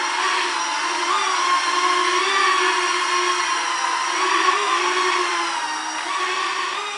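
Small toy quadcopter's electric motors and propellers whining, the pitch wavering up and down as it flies and adjusts, a little fainter near the end.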